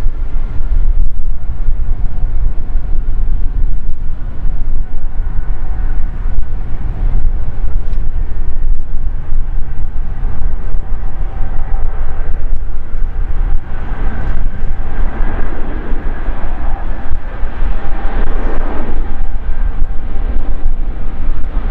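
Twin-engine widebody jet airliner's engines running on the runway: a steady low rumble with a faint steady whine.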